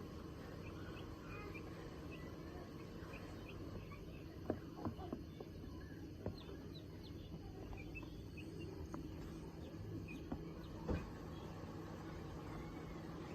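Call ducks giving soft, short high peeps scattered throughout, over a steady low background hum, with a few soft taps.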